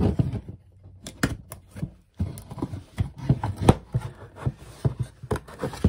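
Bamboo pieces of a slotted storage tray knocking and clicking against each other as a loose divider is worked back into its slots, in an irregular string of sharp taps.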